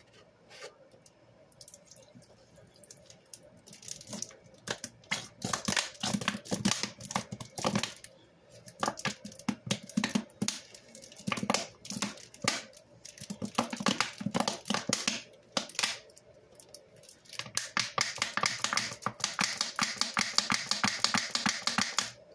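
Plastic squeeze bottle of thick gel cleaner squeezed hard by hand, the gel spurting and squelching out onto wet sponges with quick crackling and popping. It comes in stretches, with a short break about two-thirds through, then a fast, dense run of squirts near the end.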